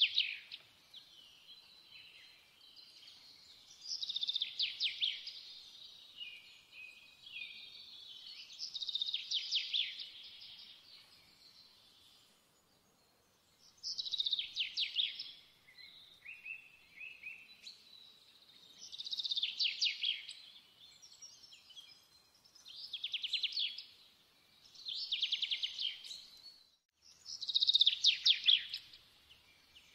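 A songbird singing short, high-pitched trilled phrases, one every four to five seconds, with fainter chirps in between.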